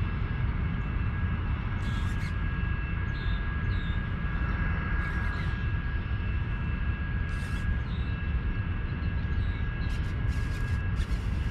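Steady low rumble, like wind buffeting the microphone, with a faint steady high whine and several short hissing bursts.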